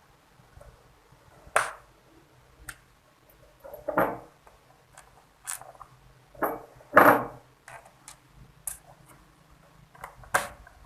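Irregular clicks and knocks from handling a laptop's plastic casing and small parts during a RAM upgrade, with louder knocks about four and seven seconds in.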